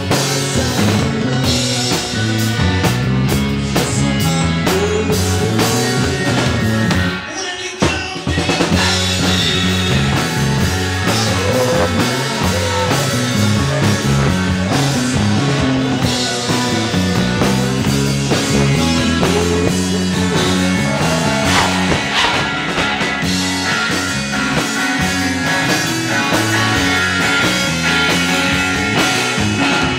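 Live rock band playing: electric guitar, bass guitar and drum kit. About seven seconds in the band drops out briefly, then comes back in at full volume.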